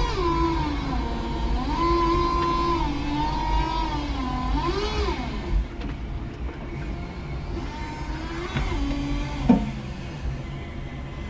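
Electric forklift motors whining. The pitch glides down at first, then steps up and down several times as the lift and drive are worked. A single sharp knock comes about nine and a half seconds in.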